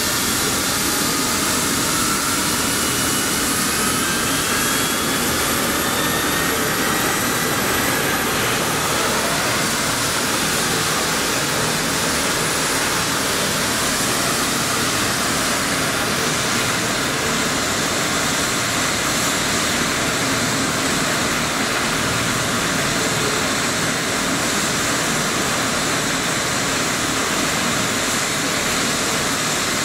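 Twin-engine turbine medevac helicopter running on the ground. Its engine whine rises in pitch over the first several seconds, then holds steady under a loud, even rotor and engine noise.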